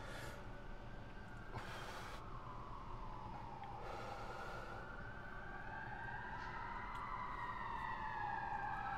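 An emergency-vehicle siren wailing, its pitch sliding slowly up and down and getting louder toward the end. Three short puffs of breath come near the start, about a second and a half in, and about four seconds in.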